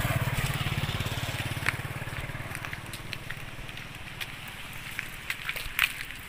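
A motorcycle engine running and fading away over the first three seconds, followed by a few light clicks and taps.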